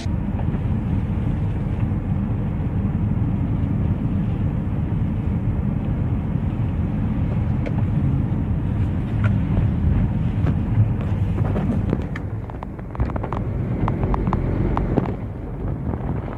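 Steady low road rumble of a car driving, heard from inside the cabin, with a scatter of light clicks and taps in the second half.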